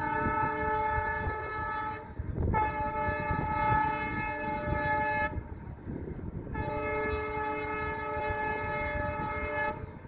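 Indian Railways locomotive air horn sounding three long blasts with short gaps between them: the first about two seconds, the next two about three seconds each. A low rumble runs beneath.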